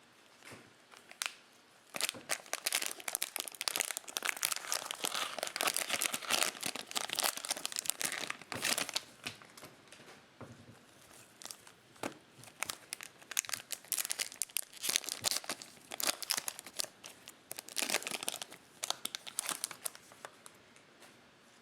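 Cellophane wrapper of a Topps Chrome trading-card cello pack being torn open and crinkled, in long stretches of dense crackling with short pauses.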